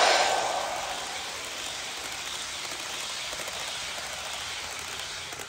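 HO scale Amtrak Cascades passenger train rolling past on sectional track: a steady hissing rattle of small metal wheels on the rails. It is loudest right at the start as the locomotive goes by, easing within the first second, then steady as the coaches pass.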